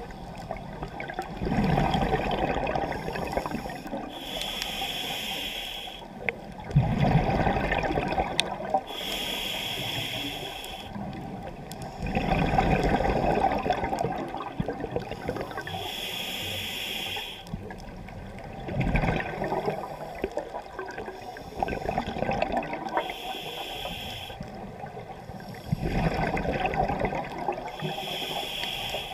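Scuba diver breathing through a regulator underwater: the demand valve hisses on each inhalation, alternating with gurgling bursts of exhaled bubbles, about five breaths in a slow, even rhythm.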